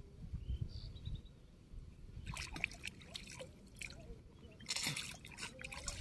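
Shallow water splashing and dripping as a wet fishing net is worked by hand at the water's edge, with a louder splash about five seconds in.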